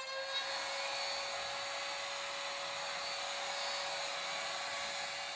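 Steady whirring hiss of a small motor with a faint steady hum in it, easing off near the end.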